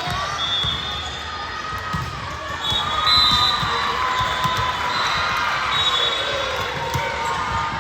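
Volleyballs thumping again and again on a hard gym floor, many short impacts in irregular succession, with several high squeaks and some distant voices in a large hall.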